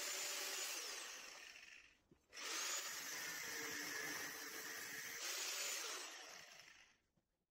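Angle grinder grinding away a lump of old weld on a car's steel chassis leg. The grinder runs, winds down about two seconds in, starts again half a second later, then winds down to a stop near the end.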